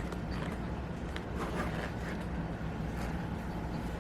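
Low steady room hum with a few faint clicks and rustles of packaging being handled.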